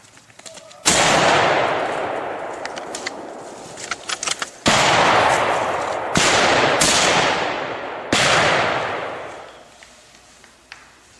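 Five shots from a scoped hunting rifle, each followed by a long rolling echo through the forest: one about a second in, then after a pause of nearly four seconds four more in quick succession over the next three and a half seconds. A few small clicks sound between the first and second shots.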